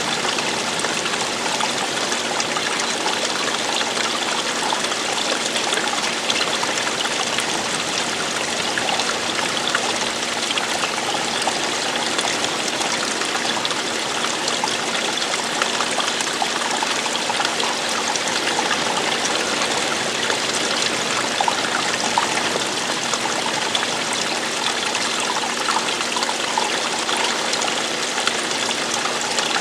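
Running, falling water: a steady, even rush that does not change.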